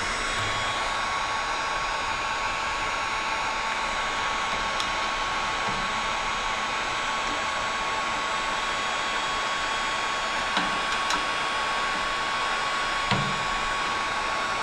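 Handheld Wagner heat gun running: a steady rush of blown air with a constant whine, heating a stuck engine valve cover to free it. A few light knocks near the end.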